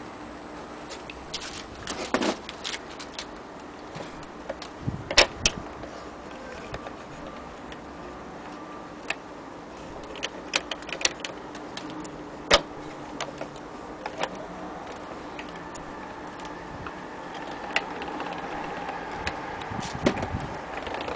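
Irregular mechanical clicks and ticks from handling and winding an antique hand-cranked gramophone, over a faint steady hum. A faint whirring grows over the last few seconds.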